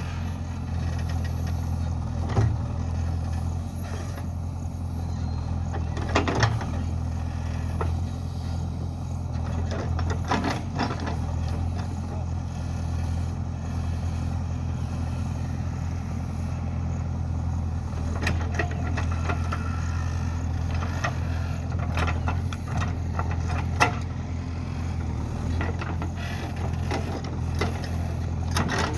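JCB backhoe loader's diesel engine running steadily, with a few sharp knocks or clanks scattered through, the sharpest near the end.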